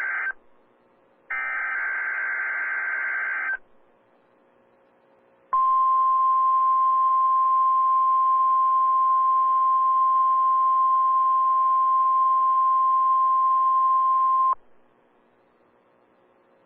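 NOAA Weather Radio weekly test signals: the tail of one SAME digital header burst, then a full burst of data tones lasting about two seconds. After a short pause comes the steady single-pitch 1050 Hz warning alarm tone, held for about nine seconds before it cuts off sharply, leaving a faint hum.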